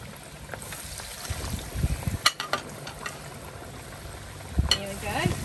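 Oil bubbling and sizzling as large scotch eggs deep-fry in a wok, with a few sharp crackles of spitting oil. Wind buffets the microphone in low gusts, about two seconds in and again near the end.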